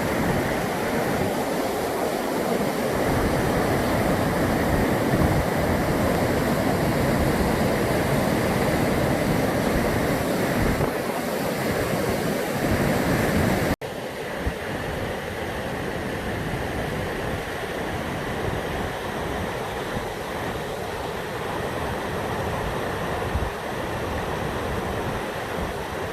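Rushing water of the Brúará river's waterfalls, a steady even rush. About halfway through the sound cuts off abruptly and resumes a little quieter and thinner, with an uneven low rumble of wind on the microphone underneath.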